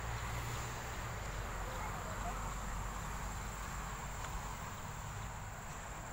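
Outdoor ambience dominated by a steady, high-pitched insect buzz, with low background rumble and a faint brief chirp about two seconds in.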